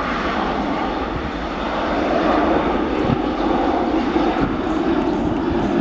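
Airliner engines running loud, a broad rushing noise that swells a little about two seconds in and then holds steady.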